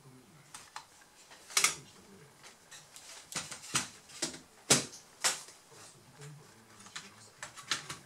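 Sharp plastic clicks and knocks as a Dell Inspiron 1545 laptop chassis is handled, turned over and its palmrest pressed into place. There are about a dozen separate clicks, the loudest about a second and a half in and near the middle, with a quick cluster near the end.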